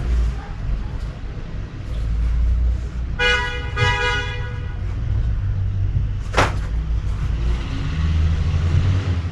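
Traffic rumbling, with a vehicle horn giving two short honks about three seconds in, and a short sharp sound just past six seconds.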